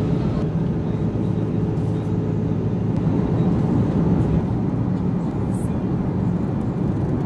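Steady low drone of an Airbus A330-300 airliner heard inside the cabin, an even rumble with a few constant low hums.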